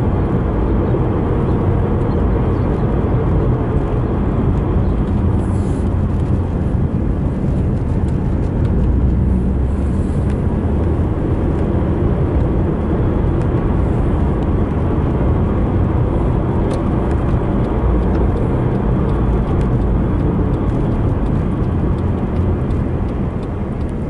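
Car driving along a sealed road, heard from inside the cabin: a steady, even rumble of engine and tyre noise.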